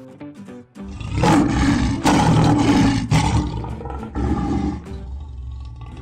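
Male lion roaring: a long, rough roar starts about a second in, swells in two strong pushes and fades away by about five seconds, with background music underneath.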